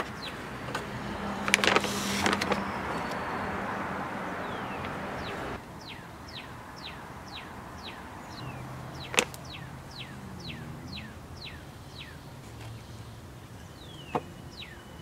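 Large plastic bag of earthworm castings rustling and crinkling as it is handled, with a few sharp crackles about two seconds in; the rustling stops abruptly after about five and a half seconds. A bird whistles a run of repeated down-slurred notes, about two a second, over quieter handling with a single click.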